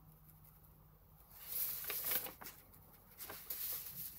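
A sheet of paper rustling as it is handled and moved over the journal pages, in two short spells: about a second and a half in, and again past the three-second mark.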